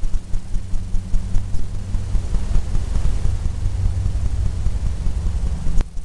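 A steady low mechanical hum, with a single sharp click near the end.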